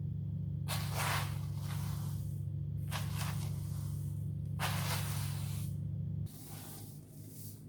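Four short hissing swishes, about a second and a half apart, over a steady low hum that cuts off suddenly about six seconds in.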